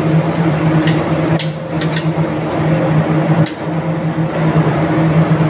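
Steady drone of running engine-room machinery with a low hum. Over it come a few sharp metal knocks and clinks, about one, two and three and a half seconds in, from turbocharger parts being handled.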